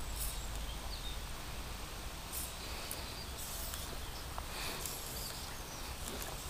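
Wind buffeting the microphone as a steady low rumble, with a few short high hisses.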